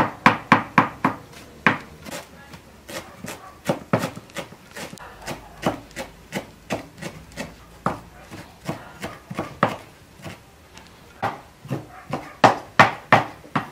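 Large kitchen knife chopping fresh green herbs on a wooden cutting board: a quick run of sharp knocks of the blade on the board, about four or five a second. The knocks are loud at the start, softer and more spread out in the middle, and loud and quick again near the end.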